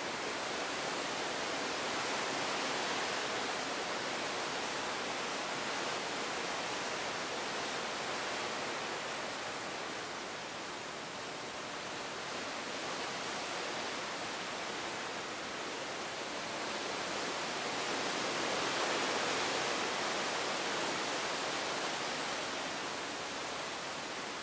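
Steady rushing of seawater churning along a moving cruise ship's hull, swelling and easing slowly.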